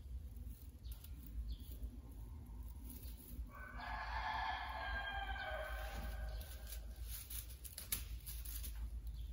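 A rooster crows once, a single call of about three seconds starting a third of the way in, over a steady low hum. Light crackling of stiff broom bristles near the end.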